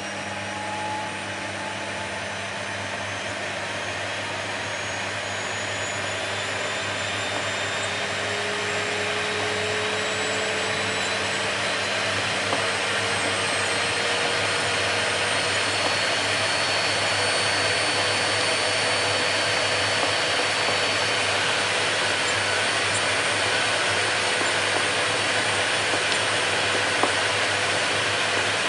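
Vacuum cleaner running steadily: a continuous airy rush with faint motor whine tones that slowly rise in pitch, growing gradually louder over the first half and then holding level.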